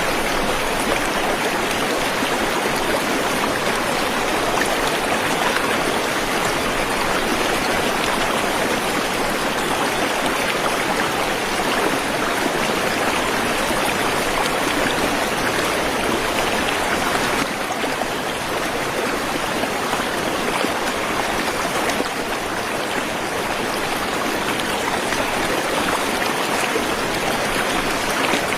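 Waterfall rushing steadily: a dense, even hiss of falling water, dipping slightly in level about two-thirds of the way through.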